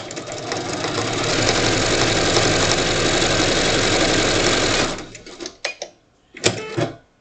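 Sewing machine stitching a seam through pieced quilt fabric, picking up speed over the first second, running steadily, then stopping about five seconds in, followed by a few short clicks.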